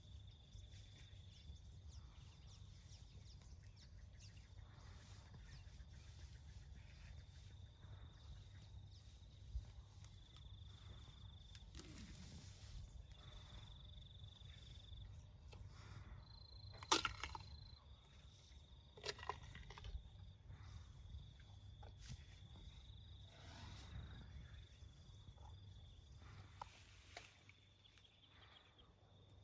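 Near-silent outdoor ambience with a low rumble and a faint steady high-pitched note. A little past halfway come a few sharp crunches as a young African elephant chews a whole sweet potato with its molars.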